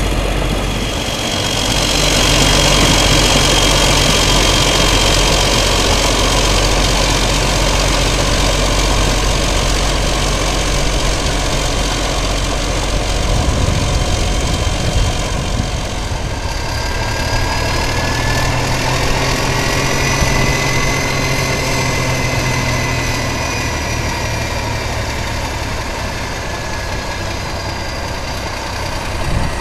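Caterpillar D9 crawler tractor's diesel engine running steadily while it tows a pull-scraper cutting through dirt, with a faint whine that rises and then falls in pitch partway through.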